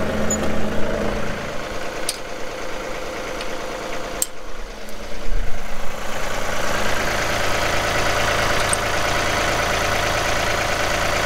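John Deere compact tractor's diesel engine running steadily at idle, with a few light clicks and a low thump about five seconds in.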